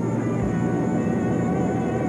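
Documentary background music with steady held tones over the continuous rumble of helicopters in flight.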